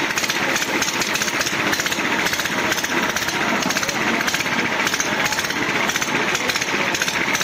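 An engine running nearby with a steady, rapid clatter that does not change.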